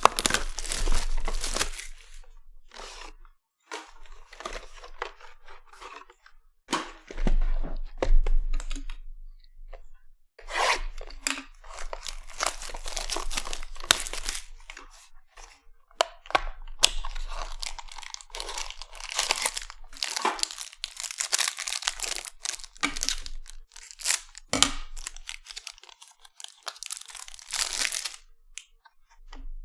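A hobby box of trading cards and its packs being torn open by hand: wrappers tearing and crinkling in irregular bursts with short pauses between.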